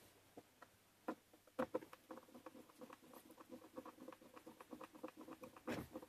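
A hand screwdriver turning a screw into an aluminium track on plywood: a quiet, fast run of small clicks, about six a second, with a couple of knocks near the start and a louder knock near the end.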